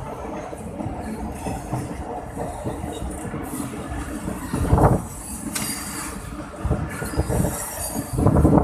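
Passenger railway coach moving along the track, heard from inside the carriage: wheels clattering over the rails and the coach body rattling, with a brief louder rumble about five seconds in. It gets louder near the end as the sound comes in through the open window.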